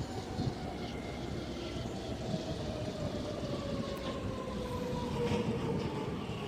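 Sydney Metro Alstom Metropolis driverless train pulling into the platform, its electric traction motors whining in a tone that falls slowly in pitch as it brakes, over a low rumble of wheels on rail.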